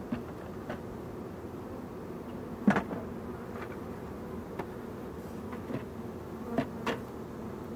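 Honeybees buzzing steadily around an open hive, with a few sharp knocks of hive frames being shifted in the box; the loudest knock comes about two and a half seconds in.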